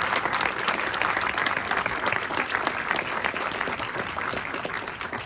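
Theatre audience applauding, a dense clapping that slowly dies down near the end.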